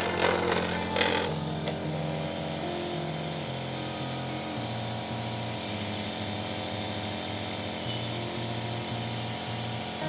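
Compressor nebulizer running with a steady mechanical hum and hiss, misting a dose of Duolin mixed with saline; a couple of short knocks come in the first second or so.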